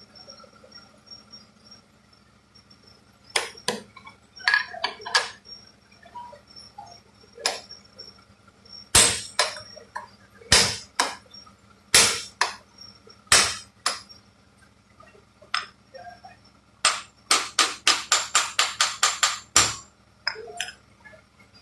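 Hammer striking metal in a series of separate blows, some a second or more apart, some ringing briefly. Near the end comes a fast run of about a dozen quick strikes, roughly five a second. A faint steady hum runs underneath.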